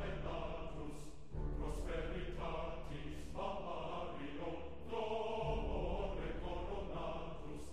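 Choral background music: voices holding sustained chords that change every second or two over a deep bass note.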